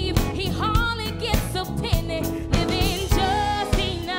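A woman singing lead live into a handheld microphone, backed by a band with drums on a steady beat, bass and keyboards. Her held notes near the end waver with a wide vibrato.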